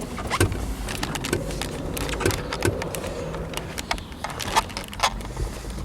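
Irregular knocks, thuds and clicks as the rear seat cushion of a W124 Mercedes-Benz 300E is handled and pushed back into place in the car.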